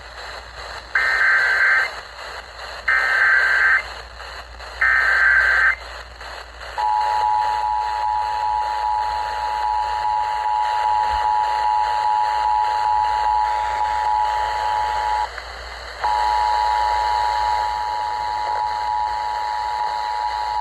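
Emergency Alert System tones broadcast over FM radio: three short bursts of screeching digital header data about a second apart, then the steady two-tone attention signal. The tone cuts out for under a second about fifteen seconds in and then resumes, heralding a severe thunderstorm warning.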